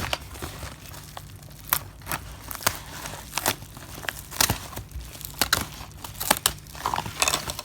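Plastic packaging crinkling and crackling in irregular snaps as a parcel is opened and its contents pulled out.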